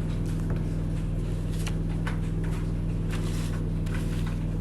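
Steady low electrical hum with faint hiss and a few light clicks.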